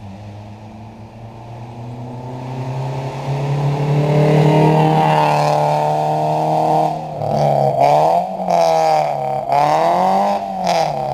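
Volkswagen Gol G4's 1.0 four-cylinder engine through a straight-pipe exhaust with no catalytic converter or muffler, loud and raw. The revs build steadily over the first few seconds and hold high, then swing up and down several times in the second half.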